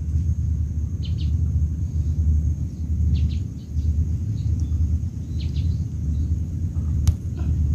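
Steady low wind rumble on the microphone, with a bird giving a few short high chirps and one sharp click near the end.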